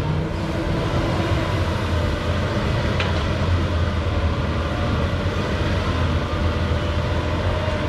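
Diesel engine of a Doosan excavator running steadily at work, a low drone, with one short click about three seconds in.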